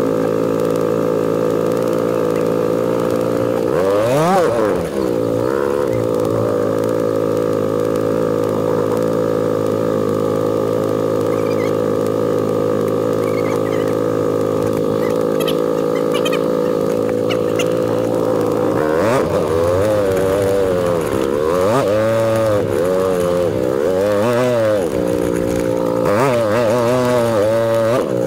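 ATV engine running steadily under way, revving up and back down briefly about four seconds in, then again and again through the last ten seconds.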